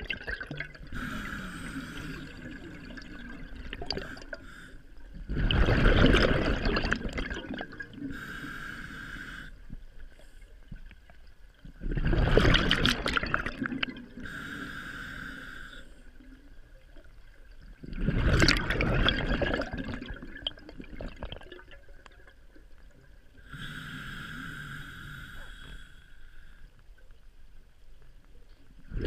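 Scuba diver breathing through a regulator, heard underwater through a GoPro housing. Quieter hissing inhalations alternate with loud bursts of exhaled bubbles about every six seconds: three bursts, and a fourth starting right at the end.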